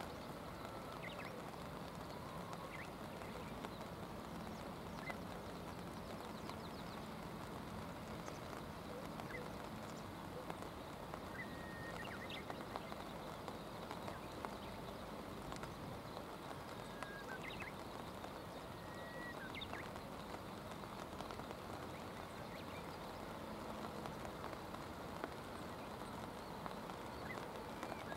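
Steady haze of flowing river water and light rain, with a few faint, short high bird chirps and whistles scattered through it.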